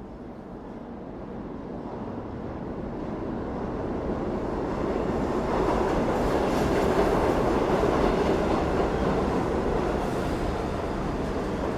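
Subway train rumbling on the rails, growing steadily louder to a peak a little past the middle, then easing off slightly.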